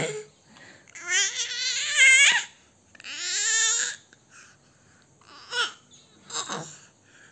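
Young infant babbling and cooing: two drawn-out, wavering vocal sounds in the first few seconds, then a couple of short sounds near the end.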